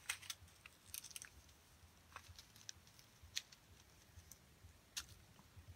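Faint handling of small plastic bags of square diamond-painting drills: a few scattered light clicks and crinkles over a quiet background.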